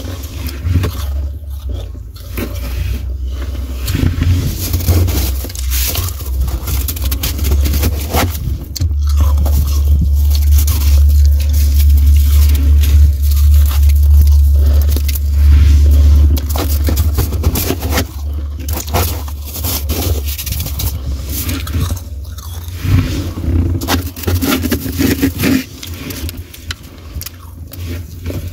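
Powdery frost in a deep freezer being scraped and crunched by a gloved hand: a continuous dense crackle of packed ice crystals breaking and shifting. A low rumble underneath swells for several seconds in the middle.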